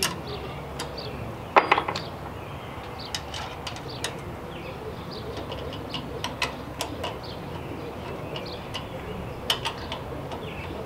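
Metal clinks and clanks from Equipment Defender trimmer rack brackets and a steel support bar as they are handled and loosened, with one louder clank about a second and a half in and lighter scattered clicks after.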